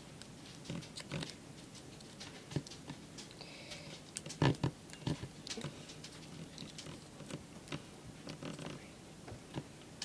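Origami paper being folded and creased by hand: irregular crinkles, rustles and small taps, with a louder cluster of crackles about halfway through.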